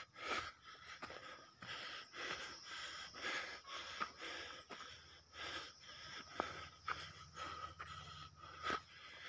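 A man panting hard, quick, even breaths close to the microphone, out of breath from climbing a steep hillside.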